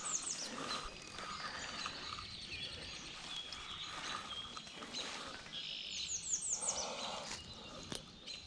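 Songbirds singing: a quick series of high, falling notes near the start and again about six seconds in, with fainter bird calls in between.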